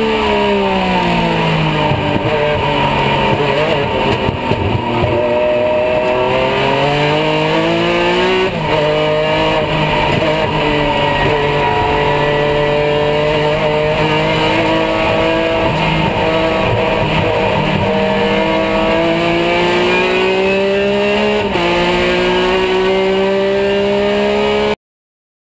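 Porsche GT3 R race car's flat-six engine heard from inside the cockpit at racing speed. The revs fall over the first few seconds, then climb steadily, dropping sharply at upshifts about eight and a half seconds in and again near the end.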